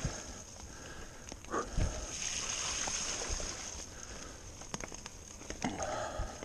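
Mountain bike rolling over a dirt forest trail covered in fallen leaves: tyre noise and rustling leaves, with clicks and knocks from the bike over bumps and a thump about two seconds in.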